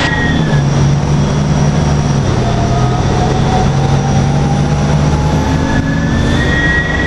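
Detroit Diesel Series 50 engine of a 2002 NABI 40LFW transit bus running with a steady low drone and a thin turbocharger whistle. A high whistle fades out early, a lower whistle rises slowly through the middle, and a high whistle comes back near the end.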